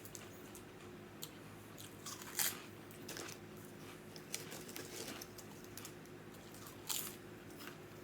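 A person chewing and biting food close to the microphone: crunches and wet mouth clicks, with two louder bites about two and a half seconds and seven seconds in.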